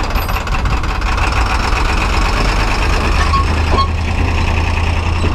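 Truck engine idling steadily, giving off heavy exhaust fumes.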